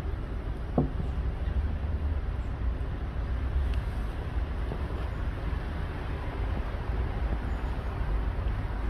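Outdoor background noise of distant traffic: a steady low rumble, with one brief sharp sound about a second in.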